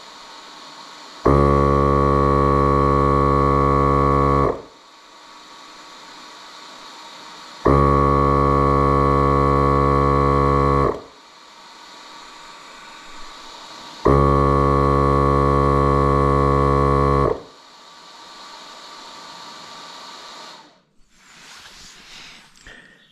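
A loud, steady buzzing tone rich in overtones sounds three times, each lasting about three seconds, starting and stopping abruptly at an even spacing of about six seconds.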